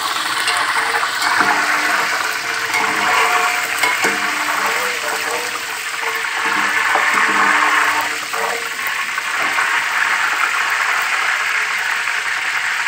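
Curry leaves sizzling and crackling loudly in hot oil with fried onions, a steady frying hiss.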